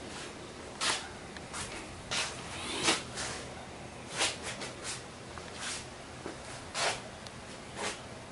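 Scattered brief rustles and soft knocks of hand handling, about a dozen at irregular intervals.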